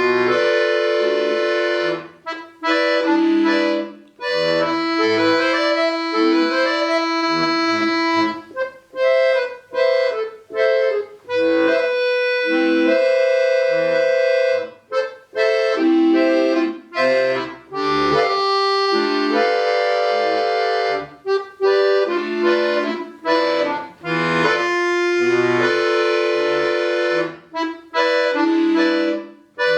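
Solo bayan (Russian button accordion) playing: quick runs of notes alternating with long held chords, in phrases broken by short pauses.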